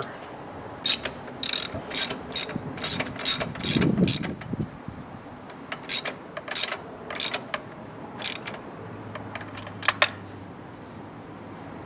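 Ratchet wrench clicking in short, irregular runs as the idler pulley bolt on a Jeep's serpentine belt drive is turned, with pauses between the runs.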